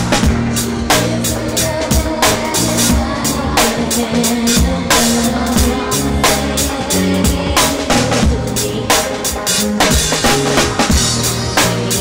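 A live band playing an R&B song, with the drum kit's kick and snare keeping a steady beat.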